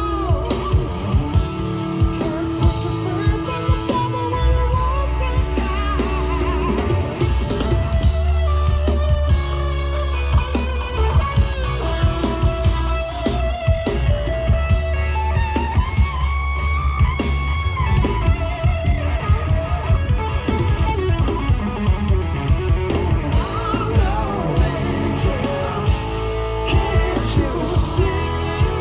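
A rock band, electric guitar, bass guitar and drum kit, playing a song live and loud through a PA, with steady drum hits under the guitar lines.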